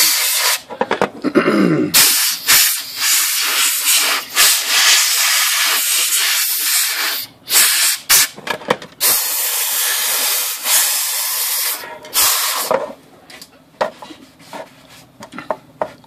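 Compressed-air blow gun hissing in several long blasts and shorter bursts, blowing water out of the crevices of a freshly washed typewriter lid to dry it. Near the end the hissing stops and quieter rubbing and handling sounds follow.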